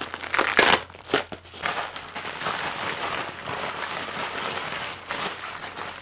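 Packaging being unwrapped by hand, crinkling and crumpling, with sharper crackles in the first second or so.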